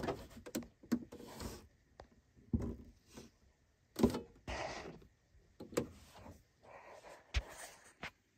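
Handling noise: irregular bursts of rubbing and scraping, broken by several sharp clicks and knocks, as the unit and camera are moved about.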